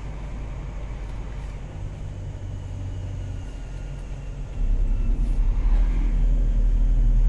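Heavy vehicle's engine running as it drives, heard from inside the cab: a steady deep drone that gets markedly louder about four and a half seconds in, as the engine takes more load.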